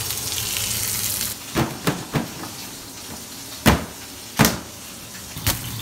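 Frying food sizzling in a pan, which cuts off about a second and a half in. Then come a few light knocks and two loud clunks about a second apart, the lid of a stainless-steel pedal bin banging open and shut, with a lighter knock near the end.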